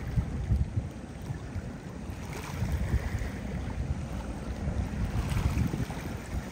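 Wind buffeting the microphone: a gusty, uneven low rumble that swells and drops every second or so.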